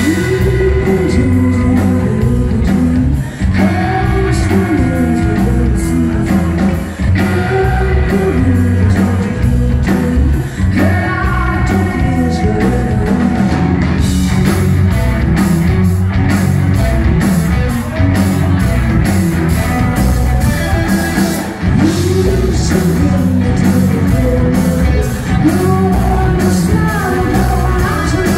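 Live rock band playing loud: a woman singing lead over distorted electric guitars, bass guitar and a drum kit with crashing cymbals.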